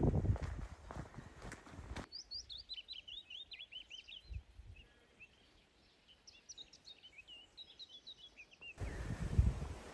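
A small songbird sings two bouts of quick, high, falling chirping notes. Footsteps on the trail sound at the start and again near the end, louder than the song.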